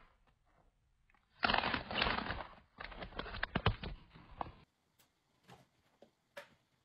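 Crinkling and rustling of a plastic chip bag being handled, in two spells of about a second each, the second with sharper crackles. A few faint taps follow near the end.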